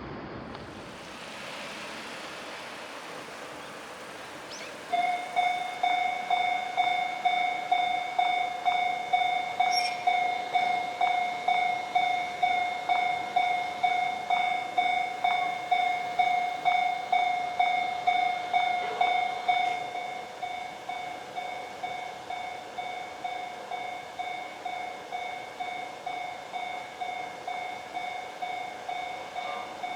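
A Japanese railroad crossing's electronic warning bell starts about five seconds in, ringing a single repeated tone about twice a second. About fifteen seconds after it starts, it drops to a quieter level and keeps ringing.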